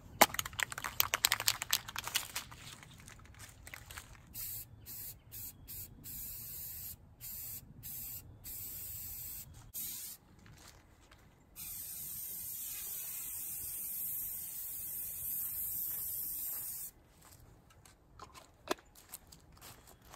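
Aerosol spray paint can being shaken, its mixing ball rattling for about four seconds, then sprayed in a run of short hisses and then one steady hiss of about five seconds.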